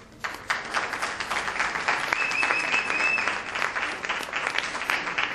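Audience applauding, starting just after the beginning and going on steadily. A brief steady high tone sounds over the clapping for about a second in the middle.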